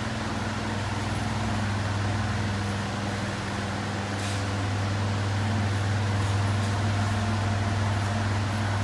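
Steady low hum of an electric fan running, even and unchanging throughout.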